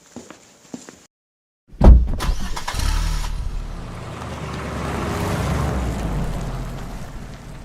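A few light clicks, then a vehicle engine that starts abruptly about two seconds in, loudest at the start, and runs steadily. It is laid in as a sound effect for the miniature construction vehicles.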